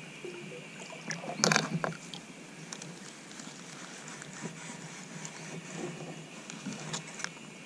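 A kayak paddle clattering against a plastic kayak as it is set down, a short burst of knocks about a second and a half in. After it come small clicks of a fishing reel being handled and wound.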